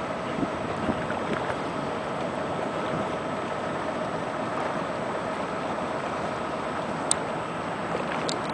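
Steady engine drone over the wash of water and wind, with a couple of faint clicks near the end.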